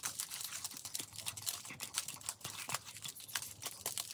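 Small clear plastic packets of round diamond-painting drills being handled and counted: many short, irregular clicks and crinkles from the plastic and the beads shifting inside.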